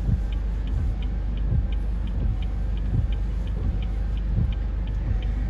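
Car turn-signal indicator ticking steadily, about three clicks a second, over the low rumble of the car heard from inside the cabin.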